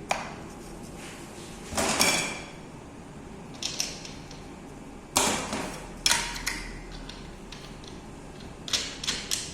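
Separate clanks and clicks of an angle grinder and its parts being handled, with the motor off: one knock about two seconds in, two more a few seconds later, and a quick run of clicks near the end, some with a short metallic ring.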